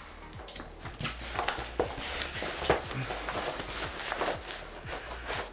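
f-stop Tilopa camera backpack being swung on and its shoulder straps adjusted: nylon fabric rustling, with irregular knocks and clinks from its straps and metal hardware.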